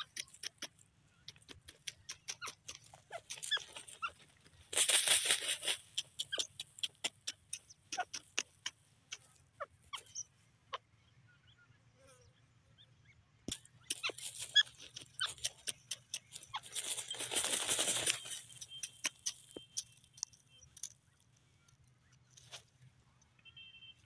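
Grey francolin scratching and dust-bathing in dry, stony soil: rapid irregular ticks of grit and pebbles, with two longer rushing flurries of scattered soil, about five seconds in and again at about seventeen seconds.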